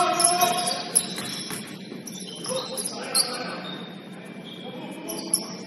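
Basketball game in a gym: many short, high squeaks of sneakers on the hardwood court, a few sharp knocks, and voices in the background.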